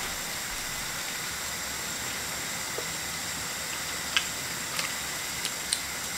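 Sweet-corn fritters sizzling steadily in hot oil in a frying pan, with a few sharp crackles in the second half.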